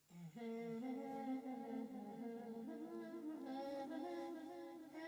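Soft wordless humming: a single hummed melody that holds each note and steps up and down between notes.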